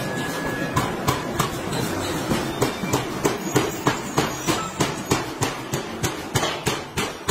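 Forge shop machinery running with a steady rumble while a ring rolling machine rolls a red-hot forged flange ring. Sharp metal-on-metal blows cut through it. From about two and a half seconds in they fall into a regular beat of about three to four a second and grow louder.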